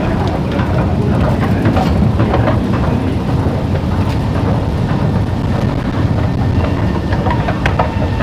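Singapore MRT East-West Line train running: a steady low rumble with scattered faint clicks.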